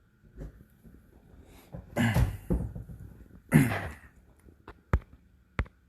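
Two short breathy vocal sounds from a person, each falling in pitch, about a second and a half apart, followed near the end by two sharp clicks.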